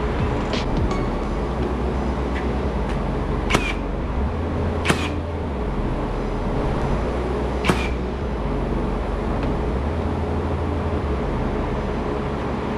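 Cordless nailer firing three sharp shots a second or two apart, driving nails into trim board, with a few fainter handling clicks before them. A steady low mechanical hum runs underneath.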